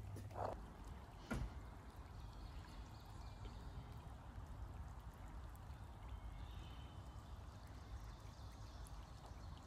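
Faint, low room noise with a single short knock about a second in.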